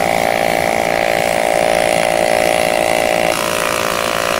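Welding arc on an aluminum pipe, a steady buzzing hum. Its tone shifts about three seconds in.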